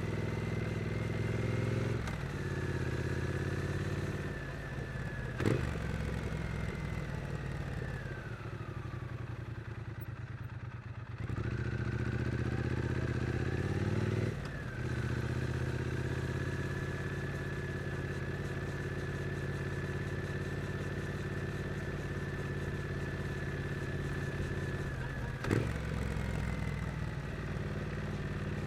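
Triumph Street Twin's 900 cc parallel-twin engine in city riding: it runs through the gears with steps in pitch, and the throttle closes so the engine note falls and fades from about 6 to 11 seconds. It then pulls away again, rising in pitch, and settles to a steady cruise. There are two sharp knocks, one around 5 seconds in and one near the end.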